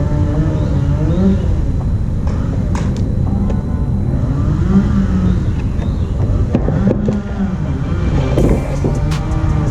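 Background music: a continuous track with heavy low bass under a wavering melodic line.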